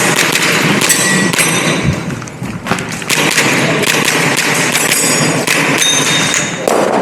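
A Tokyo Marui Glock 17 Gen4 gas blowback airsoft pistol firing during an IDPA-style practice stage: a dense run of sharp cracks and thuds with the clack of the slide cycling, over rustling from the shooter's movement.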